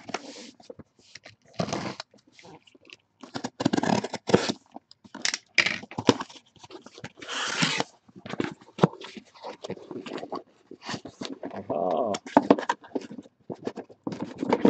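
Box cutter slicing the packing tape on a cardboard shipping case, then the cardboard flaps being pulled open, with irregular scrapes, rips and knocks.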